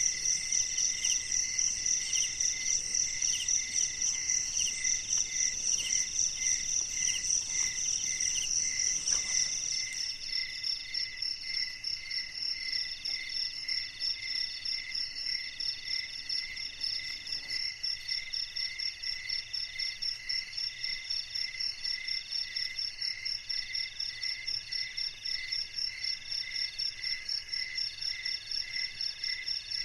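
A chorus of night insects, crickets among them, chirping steadily in several overlapping pitches with an even, pulsing rhythm. The mix changes abruptly about ten seconds in.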